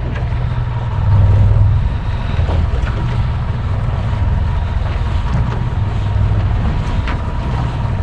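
Steady low rumble of a fishing boat's engine running, with wind buffeting the microphone.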